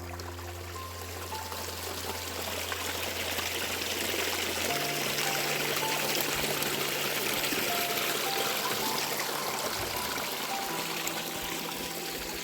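Water flowing steadily, growing a little louder toward the middle, under quiet background music with long held low notes and scattered short higher notes.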